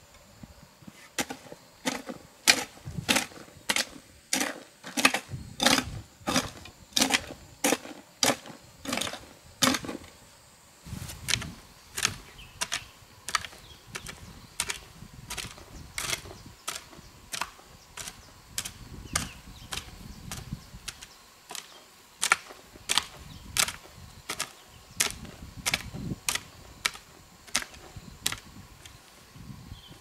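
Repeated sharp strikes, about two a second, with a short break about eleven seconds in, then going on more sparsely towards the end.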